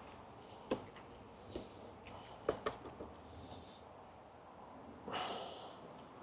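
A few sharp knocks and clicks of wooden hive frames being handled and shifted in a nuc box, with a short rushing sound about five seconds in.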